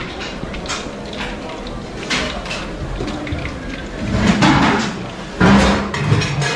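Busy kitchen noise: a steady clatter of steel utensils and a slotted spoon against pans, under background voices that grow louder about four and again about five and a half seconds in.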